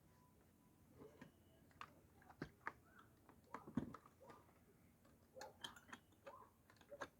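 Faint, irregular clicks and light knocks of small tools and metal parts being handled during chainsaw clutch work, the loudest knock a little under four seconds in.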